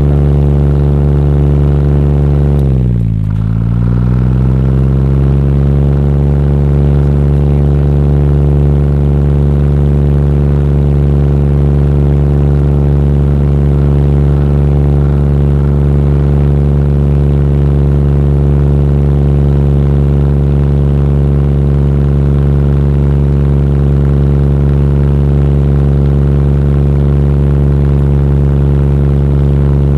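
Electric fan running at high speed, with a microphone in its airflow, giving a loud, steady drone like a light propeller plane's engine. About three seconds in, the pitch dips sharply and then climbs back over a couple of seconds.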